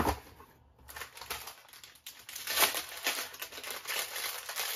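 Packaging of a pair of socks crinkling and rustling as it is handled, with irregular ticks and crackles, loudest about halfway through.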